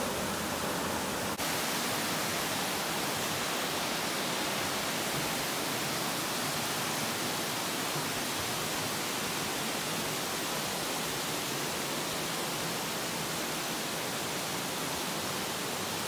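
Steady rush of a mountain stream or waterfall, an even hiss of water with no break except a brief dip about a second and a half in.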